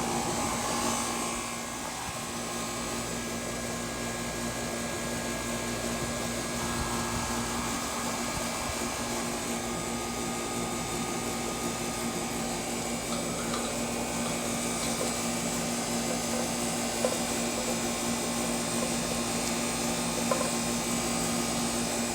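Air-conditioning condensing unit running steadily: the compressor's hum under the rush of the condenser fan, with one small click late on.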